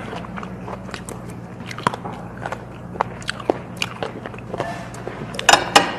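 Light clicks and taps of metal chopsticks and the crinkle of lettuce leaves as a lettuce wrap of pork hock is put together by hand, with a louder leafy rustle near the end. A steady low hum runs underneath.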